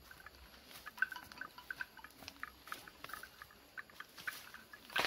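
A cow cropping and chewing grass at close range: a string of irregular crisp rips and crunches, with a louder one near the end.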